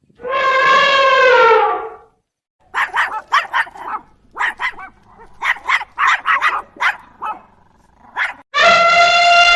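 A dog howling and barking: a long drawn-out call that drops in pitch at its end, then a run of short sharp barks, then another long call beginning near the end.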